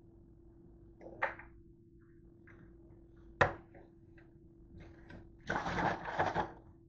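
Plastic gallon jug handled at a stainless-steel sink: a few light knocks, one sharp plastic clack about three and a half seconds in, then about a second of rushing, sloshing noise near the end. A faint steady hum runs underneath.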